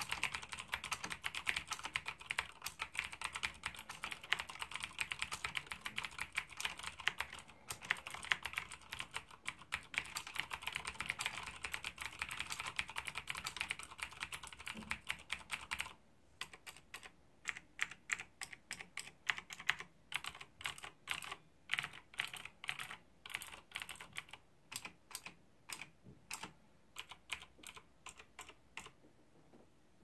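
Fast typing on a Dolch PAC keyboard with clicky Cherry MX vintage blue switches. About halfway through, the typing slows to separate keystrokes, about three a second, and it stops near the end.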